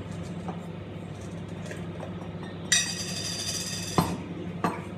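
Cookware clatter over a steady low hum: a high grating scrape starts suddenly and lasts just over a second, ends in a sharp knock, and another knock follows soon after.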